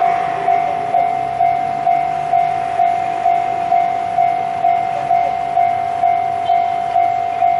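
Level crossing warning bell ringing at about two strikes a second, each strike a single clear tone that dies away. Under it is the low running of a Sendai Rinkai Railway SD55 diesel locomotive approaching slowly with a container freight train.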